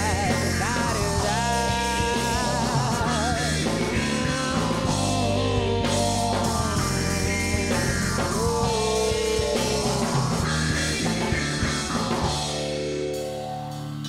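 A rock band playing electric guitar, bass guitar and drum kit, with a wavering lead melody over steady bass notes and no sung words. Near the end the sound thins out and drops a little.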